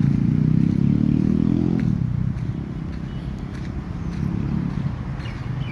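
Motor vehicle engine passing by, loudest for the first two seconds and then falling away.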